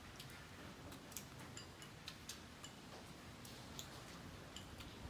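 Faint, irregular small clicks of people eating: chopsticks tapping against porcelain rice bowls, with chewing, a few clicks each second.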